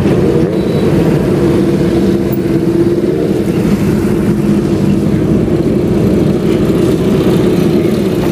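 Engines of many old motorcycles running together: a loud, steady drone with a held note.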